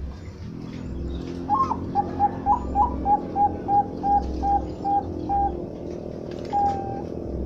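Zebra dove (perkutut, Bangkok strain) singing: a few rising coos leading into a run of short, even cooing notes, about three a second, ending with one longer drawn-out note.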